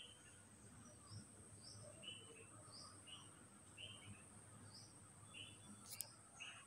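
Near silence, with faint short high chirps repeating roughly once a second over a steady high-pitched hiss. A single sharp click comes near the end.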